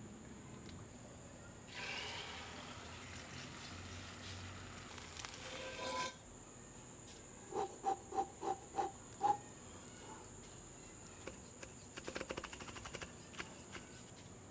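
Soft sizzling of egg cooking in an oiled frying pan for a few seconds, then six short pitched blips in quick succession, then a fast run of knife chops on a wooden chopping board as the rolled egg sheet is cut into strips.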